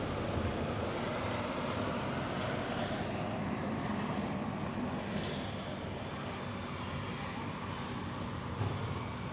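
Steady low mechanical hum with an even rushing noise, unchanging throughout.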